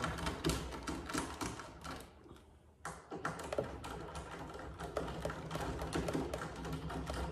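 Irregular light clicks and taps of screws and a hand tool being worked into a metal wing upright on a fibreglass ducktail, the screws set lightly rather than tightened. A short lull about two seconds in ends with a sharp click.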